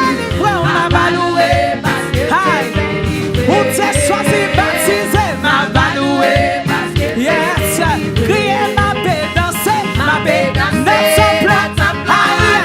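Upbeat Haitian Creole gospel praise song performed live: a singer's melody over a church band with a steady drum beat.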